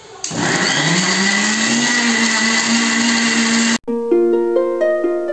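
Electric mixer grinder's motor starting up, its pitch rising as it spins up to speed, then running steadily until it cuts off abruptly. Plucked-string music (like a harp) follows over the last second and a half.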